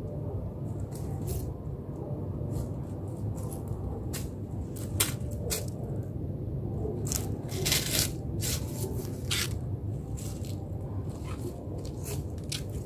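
Dry leaves crackling in scattered short clicks as cats move and paw about among dead leaves on paving, with a few louder clusters of crackles around the middle, over a steady low background rumble.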